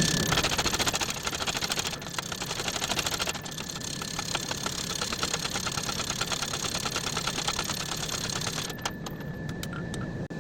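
Power hammer striking a hot wrought iron billet in a rapid, even run of blows, several a second, forging it down thinner. The blows stop about nine seconds in.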